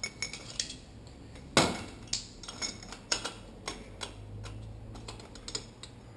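Metal parts clinking and knocking as a motorcycle fork leg and its damper are handled and worked on, in irregular clicks with a louder knock about a second and a half in.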